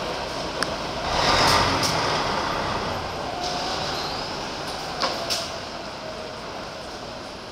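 Mitsubishi Fuso New Aerostar diesel city bus pulling away from the stop. The engine and rush of noise swell loudest about a second in, then slowly fade as the bus moves off. A couple of sharp clicks come about five seconds in.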